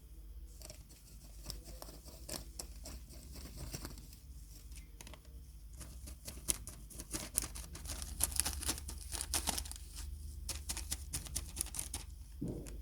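A busy run of small scratchy clicks and scrapes from close-up hand work, thickest between about 6 and 10 seconds in, over a low steady hum.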